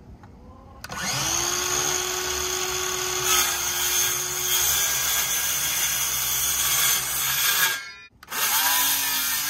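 A DeWalt cordless circular saw starts about a second in and cuts through a wooden 2x4 for roughly seven seconds, with a steady motor whine. It stops briefly, then starts again for another cut near the end.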